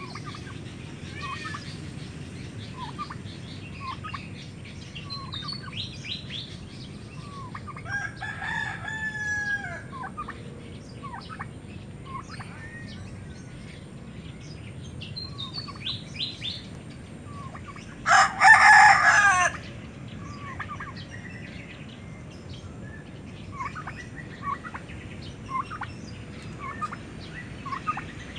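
Farmyard fowl calling: a rooster crows loudly once, lasting nearly two seconds, about two-thirds of the way through, with a softer drawn-out crow-like call about a third of the way in. Many short, high bird chirps and clucks run throughout.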